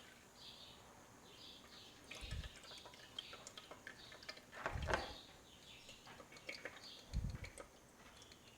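Lemon juice trickling and dripping through a sieve into a bowl, with three soft knocks. Faint bird chirps in the background.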